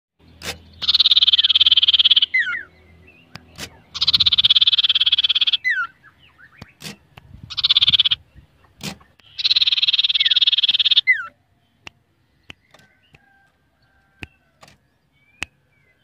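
Common iora (cipoh) giving four long, harsh rattling churrs, each ending in a short whistled slur, with sharp clicks between them; after the fourth only scattered clicks and faint notes remain.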